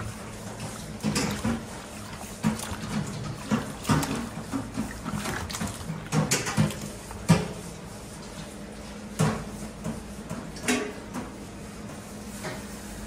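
A hand washing chunks of raw meat in a plastic basin of water: irregular wet splashes, squelches and knocks against the basin, thinning out over the last couple of seconds.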